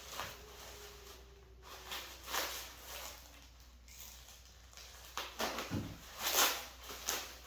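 A few faint scattered rustles and light knocks of parts and packaging being handled, with a low knock about six seconds in.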